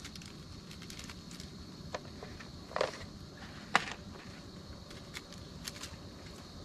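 Camp stove burner hissing steadily while a pot of water heats toward the boil, with two sharp clinks of cookware about three and four seconds in.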